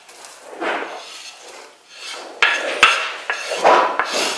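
Wooden spoon scraping chopped meat off a wooden cutting board into a stainless steel pot, with soft scrapes first and then a few sharp wooden knocks as the board and spoon are tapped clean.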